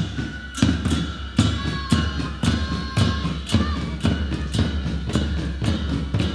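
Drum beating a steady march time, about two strokes a second, each a sharp low thud.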